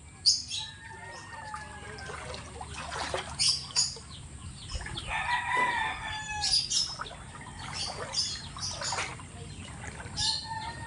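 A rooster crowing, its longest crow about five seconds in, with shorter calls and brief high chirps around it.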